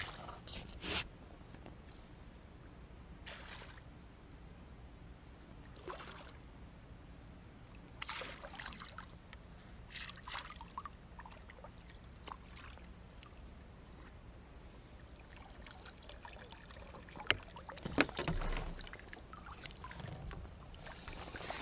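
Hooked squid at the water's surface, squirting and splashing water in short bursts every two to three seconds. Near the end come a few sharp knocks and a short busier stretch of splashing and rustling.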